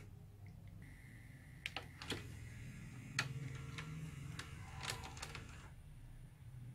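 Sharp VC-300FB VHS deck's tape mechanism clicking several times and whirring after stop is pressed, with a thin whine that dies away shortly before the end. The reel motor keeps turning in stop and drives the tape into rewind by itself, a fault the repairer traces to the reel motor's H-bridge power driver IC.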